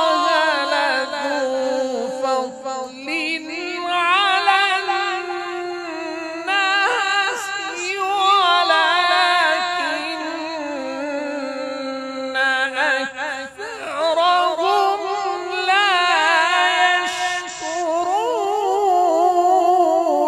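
A male qari reciting the Qur'an in melodic tajweed style, amplified through a microphone: one voice holding long, ornamented notes with quick wavering turns of pitch and no breaks.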